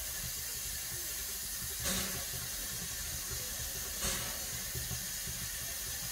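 Steam hissing steadily from a standing LB&SCR A1X Terrier 0-6-0 tank locomotive, with two brief louder surges about two and four seconds in.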